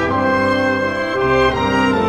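Youth orchestra playing a passage of held, full chords that change to new notes about a second in.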